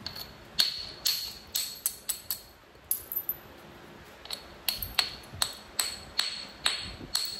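Round hammerstone tapping the edge of a Texas chert flake in flintknapping: a rapid series of sharp, clicking stone-on-stone strikes with a brief high ring, about two to three a second, in two runs with a short pause near the middle.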